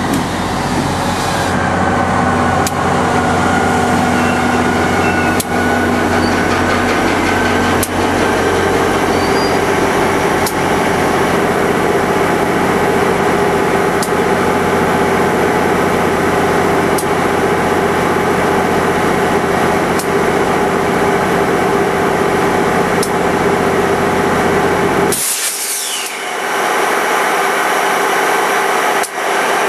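NJ Transit GP40PH-2 diesel locomotive's 16-cylinder EMD 645 two-stroke engine running steadily close by as the train draws to a stop at the platform, with a falling squeal at the start as it stops. A short burst of hiss near the end.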